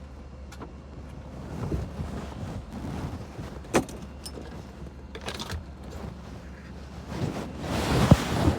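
Handling noises from work on an opened console: scattered light clicks and knocks, one sharp click about four seconds in, and a louder rustle near the end, over a steady low hum.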